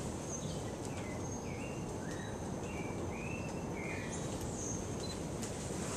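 Rainforest ambience: a run of short chirping calls between about one and a half and four seconds in, over a steady high insect hum and a low background rumble.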